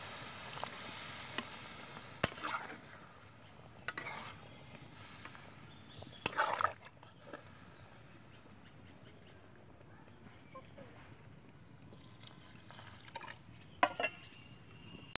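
Water poured into a wok of hot chicken curry gravy, with a sizzle at first. A metal ladle then knocks against the pan a few times, twice near the start, once in the middle and once near the end, over a steady high hiss.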